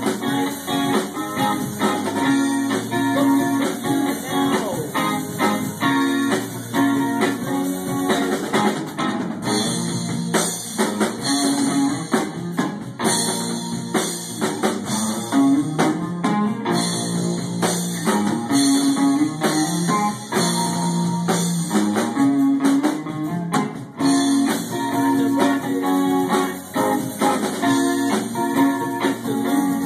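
Rock band playing live: electric guitars over a drum kit, with a low riff of repeating notes and steady drum hits.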